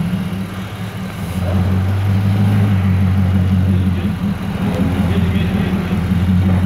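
Infiniti QX80's 5.6-litre V8 running through a tuned aftermarket exhaust, heard at the tailpipes as a steady low drone. It grows louder about one and a half seconds in, holds for a couple of seconds, then settles back.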